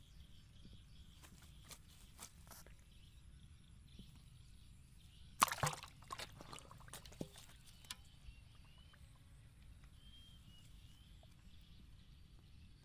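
Catfish handled and dropped into a plastic tub of caught fish: a sharp knock and clatter about five seconds in, then a few softer slaps and knocks as the fish shift and flop against the tub.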